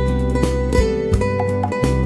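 Instrumental smooth jazz: plucked guitar over a walking bass line, with saxophone holding long notes.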